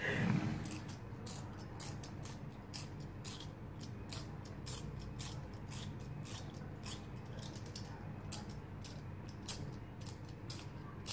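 A lighter clicked over and over as someone tries to light a candle: short, sharp clicks, irregular at about two or three a second.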